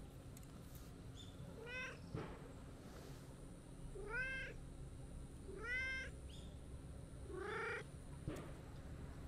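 Brown-and-white tabby cat meowing four times, short arching meows spaced about two seconds apart, the last one longer.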